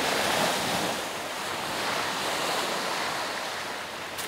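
Sea waves washing onto a pebble beach: a steady rushing hiss, loudest at the start.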